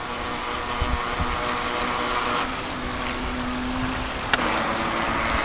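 Tornado 9.6-volt electric RC boat's small motor running with a thin steady whine as the boat speeds across the water. Wind buffets the microphone, and a single sharp click comes about four seconds in.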